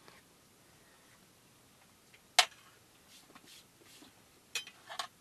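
A metal fork clinking against a frying pan while eating from it: one sharp clink about two and a half seconds in, then two lighter clinks near the end.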